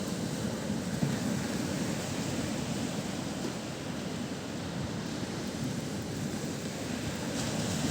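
Mediterranean Sea surf: waves washing in as a steady rushing noise, swelling a little about a second in and again near the end.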